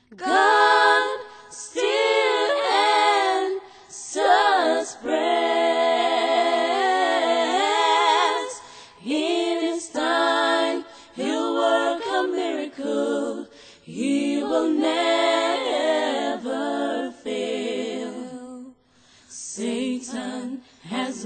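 A four-voice a cappella gospel group of women singing in harmony: held chords with vibrato, in phrases broken by short pauses.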